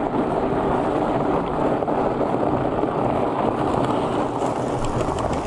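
Mountain bike rolling over gravel: a steady noise of tyres on loose stones mixed with wind on the microphone.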